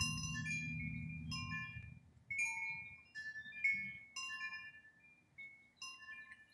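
Large tubular wind chime stirred by the breeze, its long tubes struck irregularly by the clapper, a dozen or so strikes whose clear, tuned tones ring and overlap. A low rumble underneath fades out about two seconds in.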